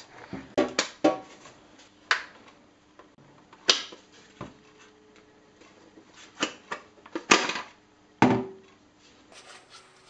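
Irregular plastic clicks and knocks from a Samsung Eco Bubble washing machine's detergent dispenser drawer being handled and unclipped, its grey front part pried off the white drawer. About a dozen sharp knocks come at uneven intervals, a few ringing briefly.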